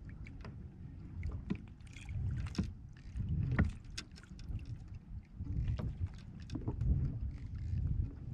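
Water sloshing and slapping against a fishing kayak's hull, with irregular sharp knocks and clicks and a low wind rumble on the microphone.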